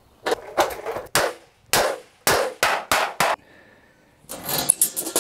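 Hammer striking a thin galvanized steel sheet, a string of sharp metallic clangs: about ten spaced blows, then a quick flurry of blows near the end.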